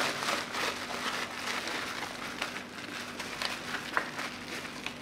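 Thin clear plastic bag crinkling and rustling in the hands as it is opened and pulled away from a small brushless motor, with many scattered small crackles.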